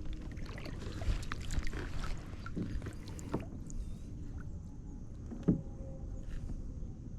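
Handling noise on a fishing kayak: scattered small clicks and knocks over a light hiss, busy for the first three seconds or so, then quieter, with one sharper knock about five and a half seconds in.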